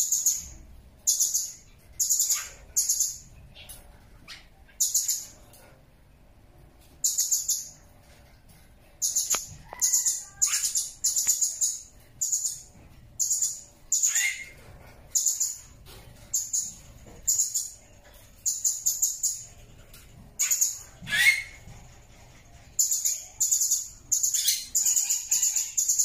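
Blue-crowned hanging parrot (serindit) giving a long series of short, very high, shrill calls, each about half a second, in irregular runs with brief gaps. A couple of lower sliding notes are mixed in, the louder one a little past three-quarters through.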